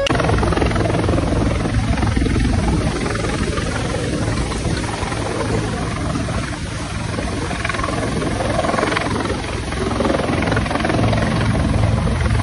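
Helicopter hovering low overhead: dense, steady rotor and engine noise with a heavy low rumble.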